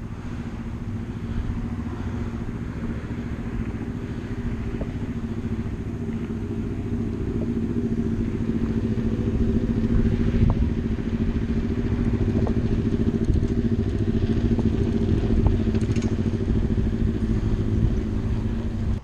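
Steady road and traffic noise heard from a moving bicycle on a city street: a continuous low engine-like hum under a fine rattle, growing louder toward the middle.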